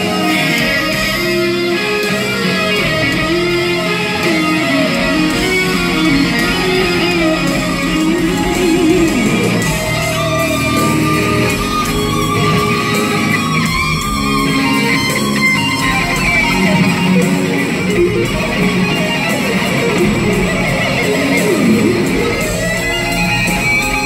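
Live electric guitar solo in a slow blues, played on a Les Paul-style guitar, with long sustained notes bent up and down over the band.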